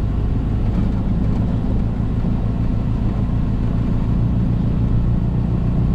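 Semi truck's diesel engine running with a steady low drone, its pitch and level unchanging.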